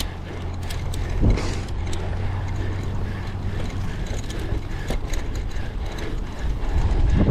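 Wind rushing over the microphone of a cyclocross bike ridden at speed, with a steady low rumble from the tyres on rough ground and scattered rattles and clicks from the bike.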